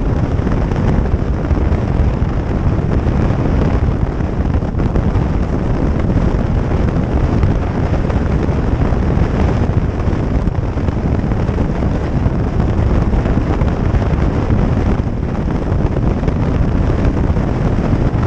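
Motorcycle riding at speed: a loud, steady rush of wind on the microphone, mixed with road and engine noise.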